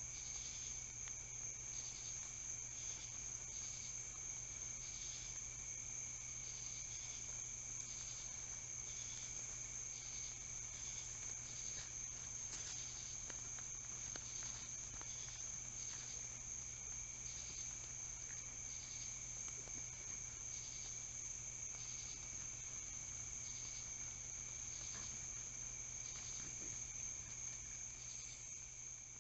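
Night chorus of crickets: a steady high trill with separate chirps repeating roughly once or twice a second over it.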